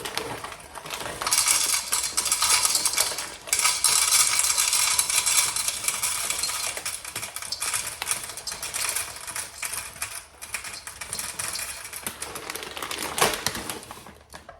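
Dry pasta being poured out for weighing: a dense rattling clatter of hard pieces, with a brief pause about three and a half seconds in, thinning out near the end.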